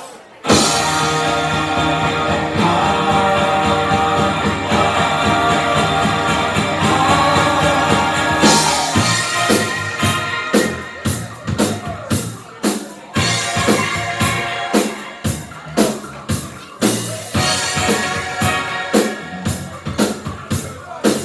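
Live rock band on drum kit, electric guitars and bass kicking into a funk song about half a second in: a loud held opening for several seconds, then from about eight seconds in a steady funky beat with regular drum hits.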